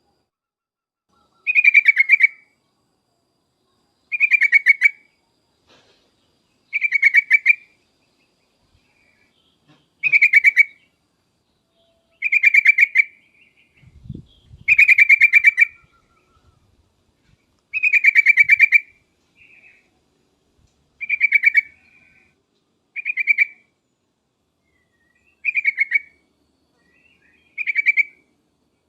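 Yellow-vented bulbul (trucuk) singing: eleven short phrases, each a quick run of notes, repeated about every two and a half seconds. A faint low thump comes about halfway through.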